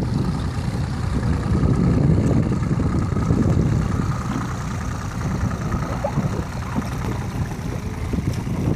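Motorboat engine running, a steady low rumble.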